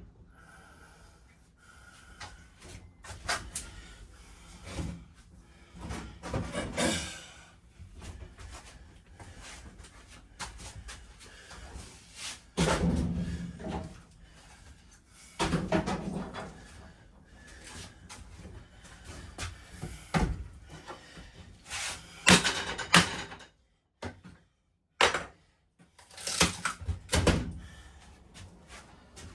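Irregular knocks, thumps and bangs with stretches of scraping as interior fittings are pried loose and pulled out, the loudest hits coming near the end.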